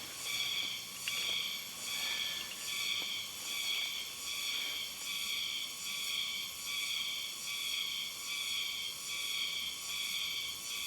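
Chorus of insects, a shrill trilling that swells and fades in an even rhythm about every 0.7 s, over a fainter steady whine. A light click sounds about a second in.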